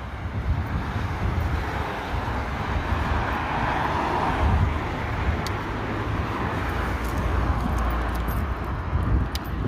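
A car passing on the road, its tyre and engine noise swelling over a few seconds and then fading, with wind buffeting the microphone in a steady low rumble.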